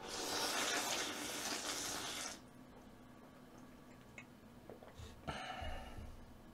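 Janchi guksu noodles slurped in one long, loud draw of about two seconds, then a shorter slurp about five seconds in.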